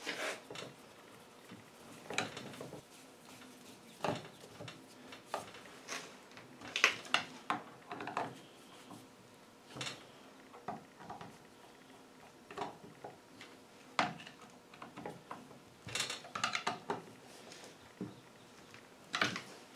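Irregular clicks, ticks and short scrapes of a screwdriver fastening the plastic pull-start cover back onto a Husqvarna 55 chainsaw, coming in scattered clusters.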